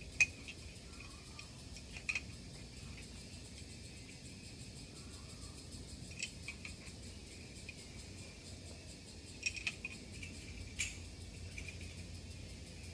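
A few sharp, scattered metallic clinks of climbing gear, carabiners and quickdraws knocking on a harness, over a steady drone of insects.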